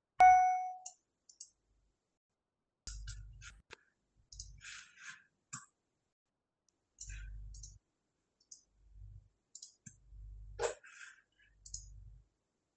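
A short ringing tone at the start, the loudest sound, then scattered clicks of a computer's keys and mouse, with soft low thumps from handling the computer.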